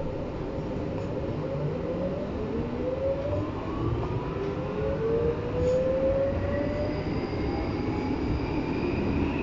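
Berlin U-Bahn class H train pulling away from a station and accelerating into the tunnel. Its traction motors whine in several tones that rise together in pitch over a steady rumble of wheels on rail, growing louder as it gathers speed.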